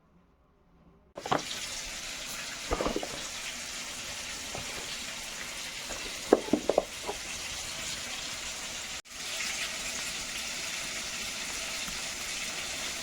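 Water running in a steady rush that starts about a second in, with a few knocks and clatters along the way. It breaks off for a moment about nine seconds in and then carries on.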